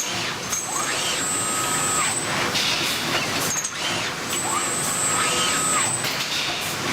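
Automated bearing-ring crack and grinder-burn inspection machine running. Over a steady mechanical noise, a motor whine rises, holds for about a second, then falls away, twice, about three and a half seconds apart, as the machine cycles through parts.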